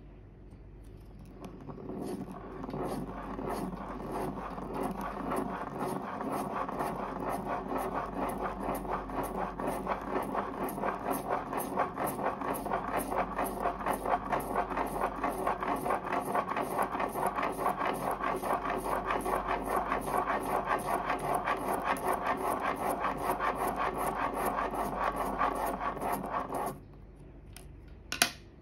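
Plastic Spirograph gear rolling around the inside of a toothed plastic ring, its teeth clicking against the ring as a pen in one of its holes scratches on paper, in a steady, rapid rhythm. It stops suddenly about 27 seconds in, followed by a single sharp click.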